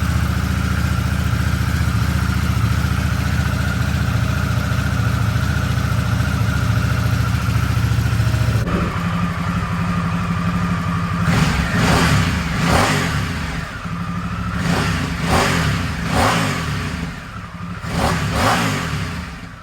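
A 2022 Harley-Davidson Nightster's V-twin engine idling steadily through its exhaust, then, from a little past halfway, revved in a series of quick throttle blips that each rise and fall back.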